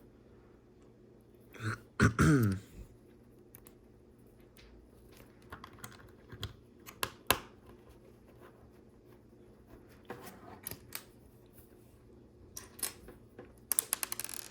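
LEGO pieces clicking and rattling as plastic bricks are handled and snapped together, scattered single clicks with a quick run of clicks near the end. About two seconds in, a short vocal noise like throat clearing, falling in pitch, is the loudest sound.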